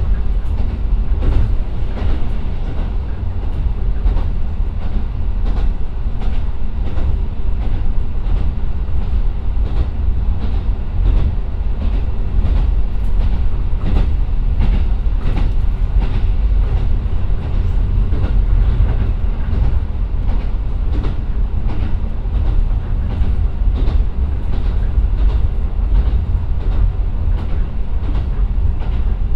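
Interior running sound of a JR Kyushu KiHa 125 diesel railcar (Niigata Tekko, DMF13HZ engine) under way: a steady, heavy low rumble with many sharp clicks from the wheels on the track.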